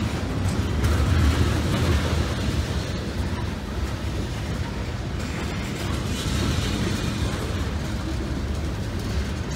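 Freight train of tank cars rolling past close by at a grade crossing: a steady heavy low rumble of wheels on rail, with a few sharp clicks from wheels over the crossing and rail joints.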